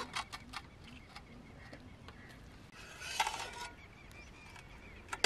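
Soft handling sounds of cooked rice being scooped by hand from a steel pot and packed into a whole goat carcass: scattered light clicks, then a louder rustle about three seconds in and another right at the end. Faint bird calls run behind.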